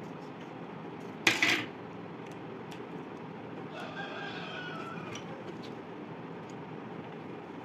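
A short, sharp clack of metal scissors about a second in, the loudest sound. Around the middle, a rooster crows faintly in the background, over a steady low hum.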